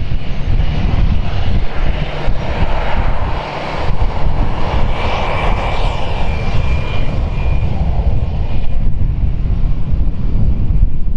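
Jet engines of taxiing airliners, a steady roar with a thin whine that swells as a narrow-body jet rolls past close by, then eases. Gusty wind rumbles on the microphone throughout.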